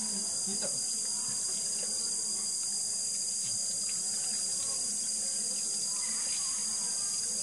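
Insect chorus making a steady, high-pitched buzzing drone that carries on without a break.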